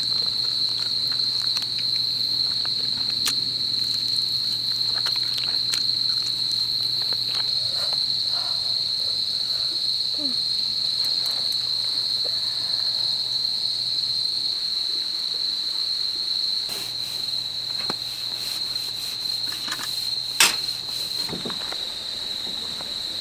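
Crickets chirping in a steady, unbroken high trill, with scattered small clicks and taps and one sharper click about twenty seconds in.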